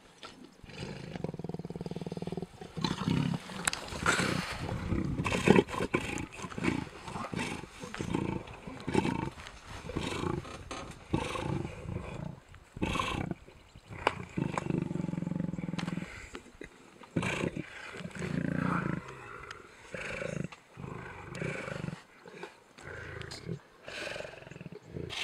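Male lions growling in rough, irregular bouts as they feed together on a warthog carcass, with short sharp noises in between.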